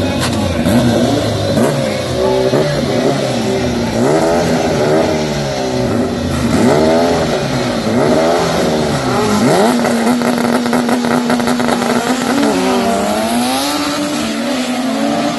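Drag-racing car engines revving in repeated bursts at the start line, then held at steady revs for a few seconds before the cars launch and pull away near the end.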